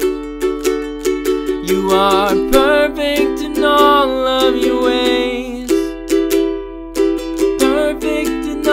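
Fender guitar with a capo strummed in a steady rhythm, with a man singing over it in a few short phrases.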